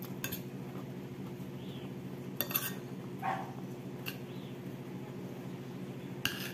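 A fork clinking on a dish about four times as someone eats, over the steady hum of a refrigerator running.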